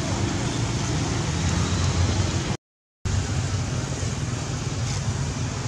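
Steady outdoor background noise with a low droning hum. It cuts out completely for about half a second midway, then resumes unchanged.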